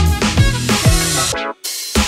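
Background electronic music with a steady beat and heavy bass; the bass and beat drop out briefly near the end.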